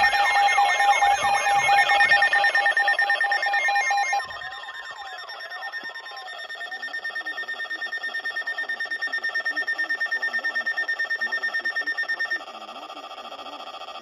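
Several NOAA weather radio receivers sounding their alarms together for a new severe thunderstorm warning. Steady tones overlap with warbling, siren-like sweeps; about four seconds in it drops back to a rapid, even pulsing beep over a steady high tone, which switches near the end to a different, quieter tone.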